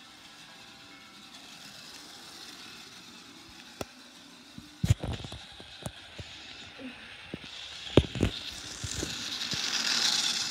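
Handling noise from a phone held by hand: a few sharp knocks and taps past the middle, then cloth rubbing against the microphone, growing louder near the end.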